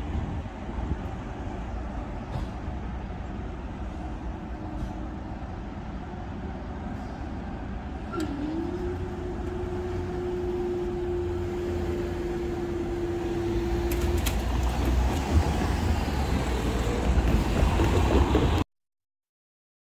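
Road traffic noise at a level crossing as the barriers rise after a train has passed, with a steady mid-pitched hum for about six seconds starting about eight seconds in. Cars then drive over the crossing, louder near the end, before the sound cuts off suddenly.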